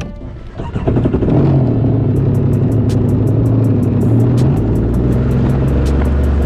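Yamaha EX Sport WaveRunner's three-cylinder engine running, swelling up about a second in, with its pitch dropping lower about four and a half seconds in. Music with a ticking beat plays over it.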